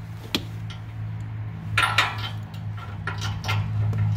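Metal clinks and scrapes of a 7/8-inch socket on an extension bar being worked down over an exhaust oxygen sensor, loudest about two seconds in, over a steady low hum.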